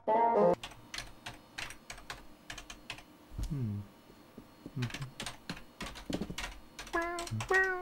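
Computer keyboard being typed on in quick, irregular clicks. Near the end come two short, pitched cat meows.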